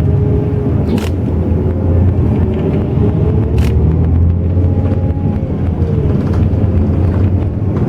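Intercity bus under way: a steady low engine and road rumble with a faint whine that slowly slides in pitch. Two short sharp clicks, about a second and three and a half seconds in.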